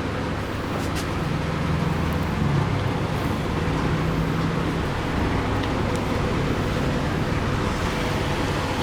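Steady low rumbling background noise with a faint hum, and one faint click about a second in.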